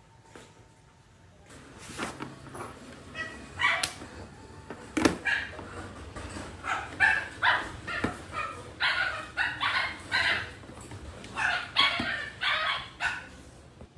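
A dog barking over and over, roughly two barks a second, with a few sharp clicks and knocks from handling the power cables and graphics card.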